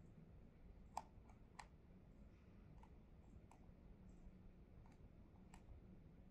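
Faint, sparse clicks of fingers working a laptop's keys, about seven at irregular intervals, the sharpest about a second in, over a low steady room hum.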